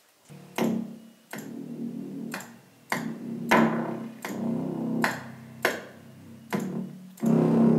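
Synthesizer keyboard chords: a new chord struck with a sharp attack every half second to a second, about ten times, each ringing on until the next.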